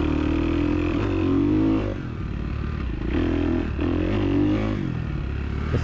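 Dirt bike engine running under way, its note rising and falling with the throttle. It eases off about two seconds in and picks up again a second later.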